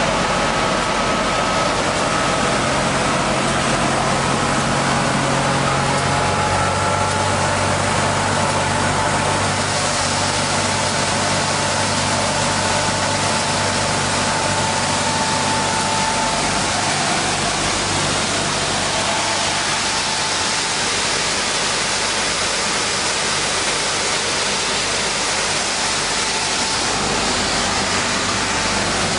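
Industrial wide-belt sander (MMTOOLS MTWCS1000) running steadily with its dust extraction, sanding a poplar snowboard core fed through on the conveyor. There is a constant hum and hiss, and the hiss turns brighter about ten seconds in.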